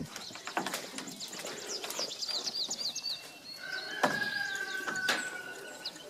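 Small birds chirping over and over in short, high-pitched notes, a couple of times a second, around the chicken coop. A few sharp knocks sound about half a second in and again about four and five seconds in. A steady, held whistle-like tone runs for a second and a half in the second half.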